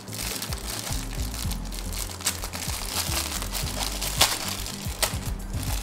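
Thin plastic parts bag of a model kit crinkling and rustling as hands work it open, with a few sharp crackles. Background music with low bass notes plays underneath and stops near the end.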